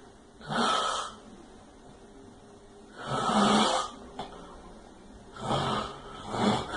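A pig snoring: four separate noisy snores, irregularly spaced, with the last two coming close together near the end.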